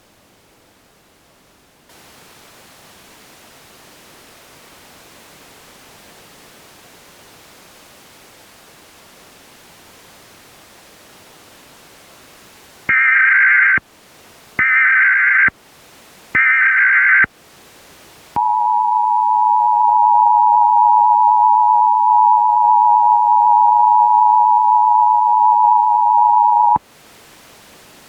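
Emergency Alert System broadcast tones: faint static hiss, then three short, harsh data bursts of the alert header, then the steady two-tone attention signal, held for about eight seconds before it cuts off suddenly.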